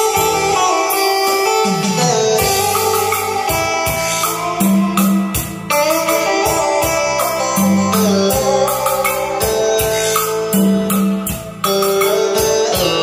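Music with a steady drum beat, bass line and plucked-string melody, played through a three-way speaker combo (30 cm bass driver, 12 cm midrange, horn tweeter) wired directly without a crossover. It dips briefly near the end, then carries on.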